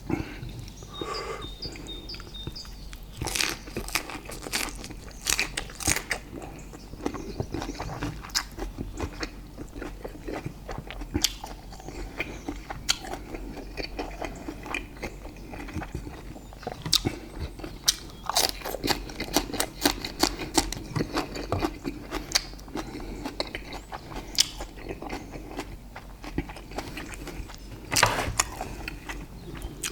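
Close-miked eating: biting and chewing grilled steak, with many short wet mouth clicks and smacks throughout.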